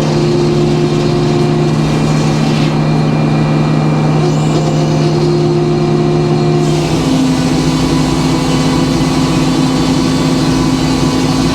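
Sawmill's engine running steadily under load, its tone shifting about seven seconds in.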